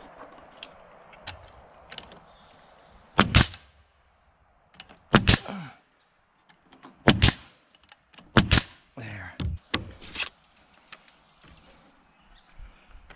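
DeWalt pneumatic coil nailer driving nails into boards, about five sharp shots a couple of seconds apart, some of them doubled.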